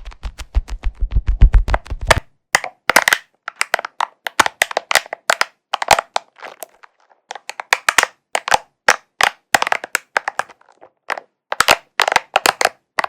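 ASMR triggers: fast tapping on a leather cushion with a deep thud in each tap, which stops about two seconds in. Then a spiky ball is handled close to the microphone, giving irregular sharp crackling clicks in short clusters.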